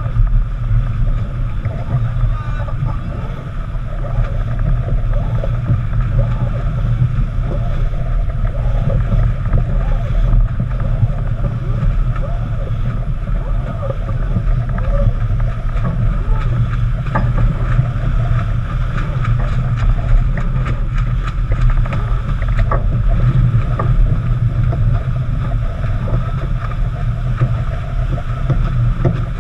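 Wind buffeting the microphone and water rushing along the hull of a heeled racing yacht under sail. A few sharp clicks and knocks come about two-thirds of the way through.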